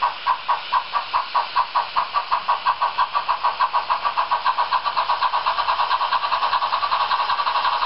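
Steam-exhaust chuffs from the ESU sound decoder of a Märklin H0 model steam locomotive, played through its small onboard speaker. They come at about four a second at first and quicken steadily to a fast, almost continuous beat as the locomotive gathers speed.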